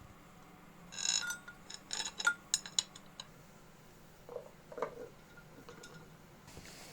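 Small metal parts and tools clinking and clicking while being handled: a short ringing clink about a second in, a run of sharp clicks, then a few duller knocks.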